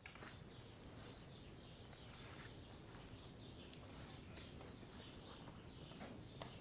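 Faint small birds chirping in many short, quick calls, with a few light sharp clicks about halfway through.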